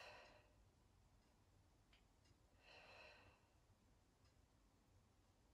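Faint breathing from a woman exercising: two soft breaths, one at the start and one about three seconds in, over near silence.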